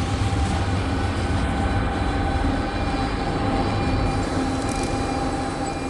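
CNC panel bender running with a steady low hum and a faint steady whine, as its U-axis is driven toward its positive limit.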